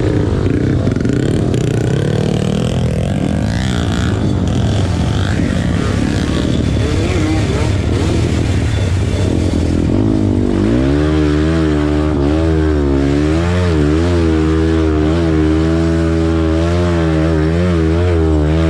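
Off-road motorcycle engine revving, its pitch rising and falling repeatedly as the throttle works. It is rough and mixed with other noise at first, then settles into a clearer, steadier note about halfway through that still wavers up and down.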